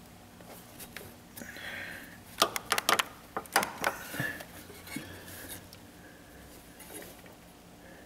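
Metal tool clinks and clicks on the camshaft sprocket of a Toyota 2.2 engine as the cam is turned a little to line up its timing mark: a short, irregular cluster of sharp clicks a couple of seconds in, with a few fainter ones after.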